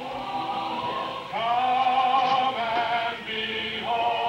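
Singing with music, in long held notes that change pitch about every second.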